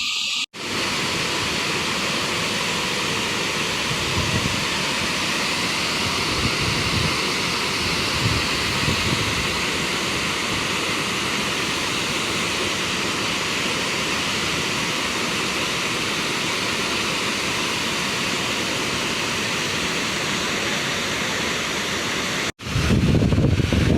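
Waterfall's falling water rushing steadily. Near the end it cuts to a louder rush with more low rumble, likely with wind on the microphone.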